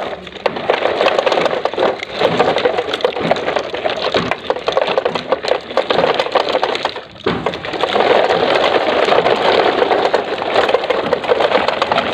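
Hard plastic wheels of toy dump trucks rolling over rough, gritty concrete: a dense, continuous crackling and grinding, with a brief break about seven seconds in.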